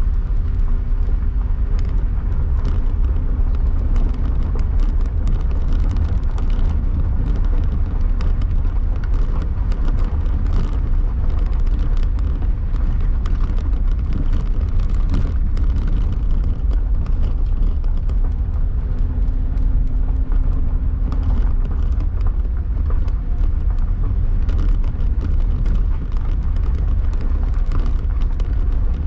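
Vehicle driving over a narrow road of loose stones, heard from inside the cabin: a steady low rumble of engine and tyres, with frequent sharp clicks and knocks from the gravel and the jolting body.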